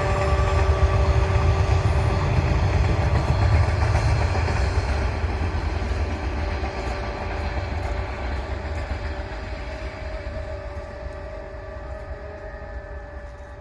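A train running past, a heavy low rumble with a few steady ringing tones over it, gradually fading as it moves away.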